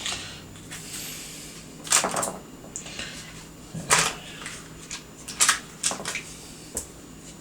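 Small clicks and scrapes of hands and tools working on a plastic car instrument cluster, about five short knocks spread over a few seconds over a faint steady hum.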